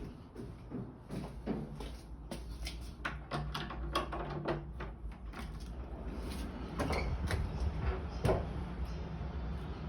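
Irregular knocks and bangs: a rapid cluster a few seconds in and two sharper ones near the end, over a low steady hum.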